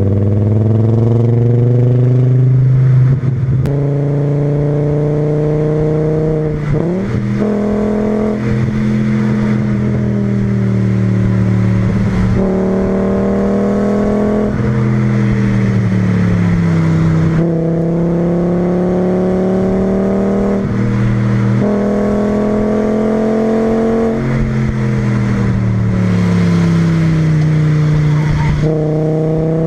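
Volkswagen VR5 20V five-cylinder engine under load, through a Milltek resonator and a 2.25-inch straight-through exhaust. The engine note repeatedly climbs in pitch over a few seconds and then drops back, about seven times.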